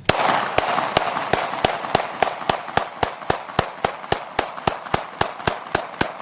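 PSA Dagger 9mm pistol fired in a fast, steady string of about twenty shots, roughly three a second.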